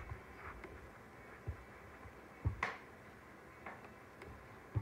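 Quiet room noise with a few faint, irregularly spaced clicks and taps, the clearest pair about two and a half seconds in.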